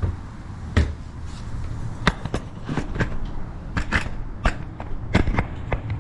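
Irregular clicks and knocks, about a dozen, as a door-lock strike plate is set into the door jamb.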